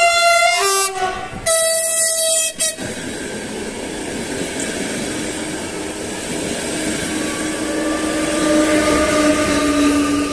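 Czech Railways push-pull passenger train sounding two horn blasts as it comes in, the second about a second and a half after the first. Its carriages then roll past with steady wheel noise, and a humming tone grows louder in the last few seconds as the electric locomotive at the rear goes by.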